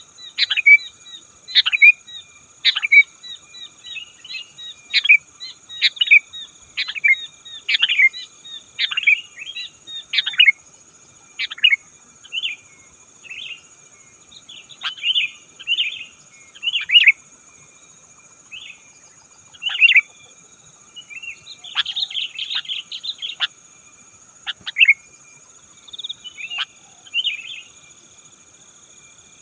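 Sooty-headed bulbul calling over and over in short, bubbly chirps, one or two a second with a few short pauses, over a steady high-pitched hum.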